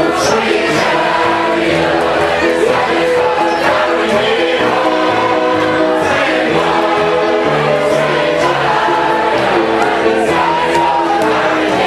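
A large crowd singing a gospel spiritual together like a choir, loud and steady, over music with a regular beat.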